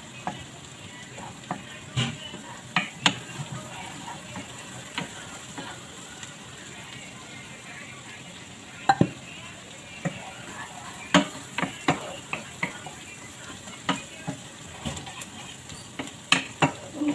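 Chopped garlic sizzling steadily in butter and oil in a pan, frying toward golden brown. A wooden spatula stirs it, with sharp knocks against the pan at irregular moments.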